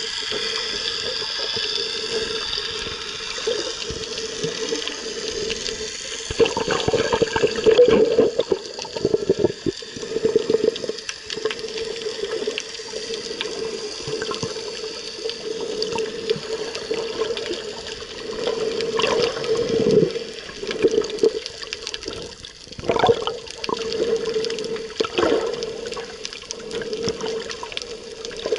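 Underwater sound picked up by a submerged camera in the sea: muffled rushing water with a steady hum, scattered clicks and crackles, and louder surges of water noise now and then.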